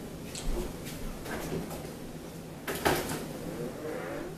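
A few light clicks and knocks over low room noise, the loudest about three seconds in.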